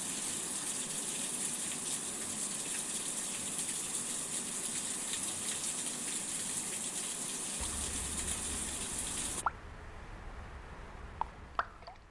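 Steady rain, an even hiss, that cuts off suddenly about nine seconds in, leaving a few single drops falling.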